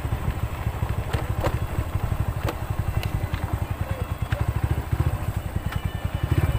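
Motorcycle engine running at low speed with a rapid, low, pulsing rumble while riding over a dirt road, with a few sharp clicks and rattles.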